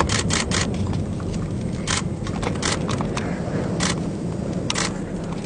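Steady low rumble of storm wind and a vehicle close to the tornado, broken by irregular short sharp crackles.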